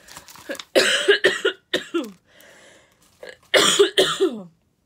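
A woman coughing in two bouts of several coughs each, about a second in and again after three and a half seconds; she is getting over a cold.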